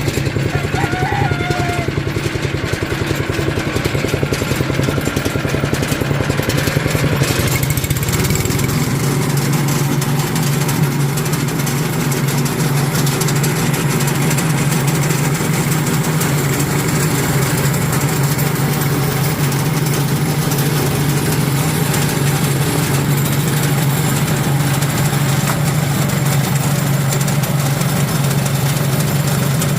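Motor of a multipurpose feed shredder running steadily, its RPM being raised for shredding; the sound shifts about eight seconds in and then holds steady.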